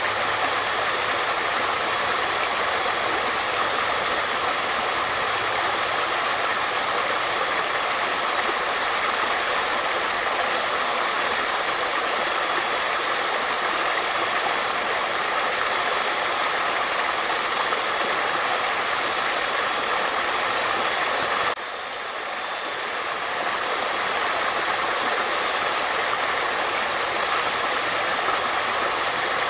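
Flowing water rushing steadily, a dense even hiss like a stream or small cascade. About three-quarters of the way through it dips suddenly and swells back up over a couple of seconds.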